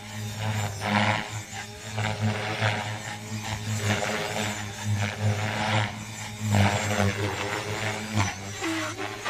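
Align T-Rex 470 RC helicopter flying 3D aerobatics, its rotor and electric motor running with a steady hum and a whine above it that swell and fade in repeated pulses as it manoeuvres.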